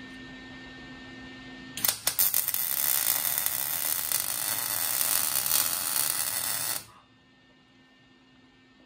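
Electric arc welding a steel shock bracket to a trailer axle: about two seconds in the arc strikes with a few sharp crackles, runs as a steady loud hiss and crackle for about five seconds, then cuts off suddenly. A steady low hum sits underneath before the weld.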